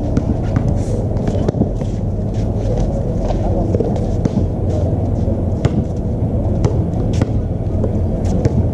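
Basketball bouncing and shoes scuffing on an outdoor court surface, heard as scattered, irregular sharp knocks over a steady low rumble.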